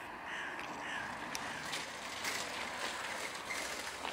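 Construction-site noise: machinery running steadily, with a row of short high squeaks in the first second and scattered metallic clanks.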